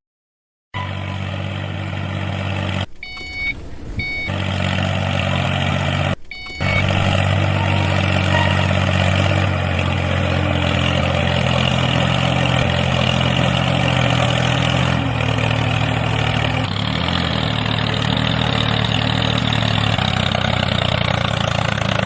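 A vehicle engine running steadily, like a tractor or truck idling, with a few short high beeps a few seconds in.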